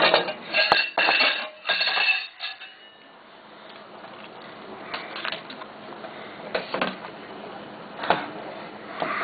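Dishes and metal utensils clattering and clinking, a quick run of ringing clinks over the first two seconds or so, then a few scattered knocks and clinks.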